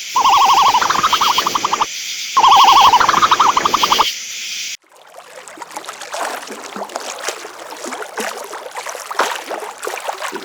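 An animal giving three loud, harsh pulsed calls in quick succession, then, from about five seconds in, a quieter, irregular crackling noise.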